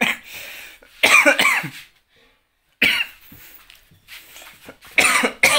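A person coughing in harsh bursts: a run of coughs about a second in, a single short one near three seconds, and another loud run about five seconds in.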